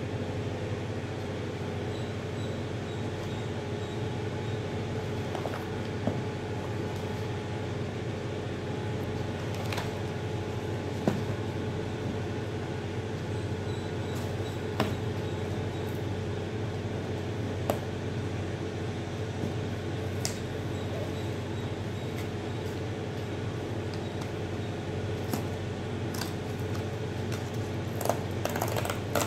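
A steady machine hum, with a few scattered sharp clicks and snips from scissors cutting packing tape and cardboard boxes being handled. A denser run of cardboard handling comes near the end as a box flap is pulled open.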